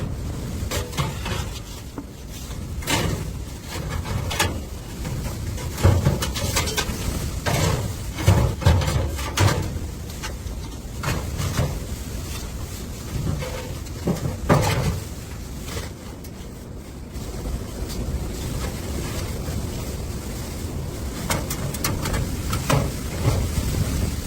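Blizzard wind gusting against the microphone as a low rumble that rises and falls, with irregular short knocks and crunches through it.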